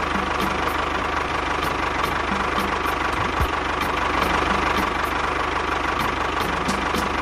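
Tractor engine running steadily at idle with an even knocking beat.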